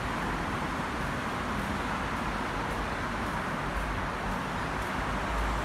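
Steady road traffic noise from passing cars, with a deeper rumble building near the end.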